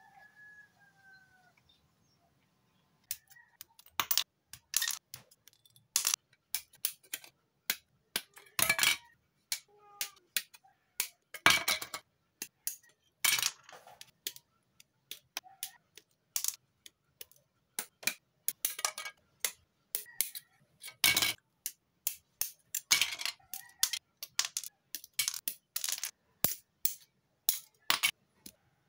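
Hard plastic model-kit parts clicking and snapping in an irregular run of sharp clicks, several a second, as pieces are handled, pressed together and taken off the runner; the clicks start about three seconds in.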